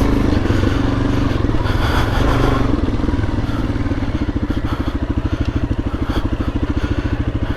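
Suzuki DR-Z400S single-cylinder four-stroke engine running under throttle on rough trail. About halfway through it drops to a low, evenly pulsing chug.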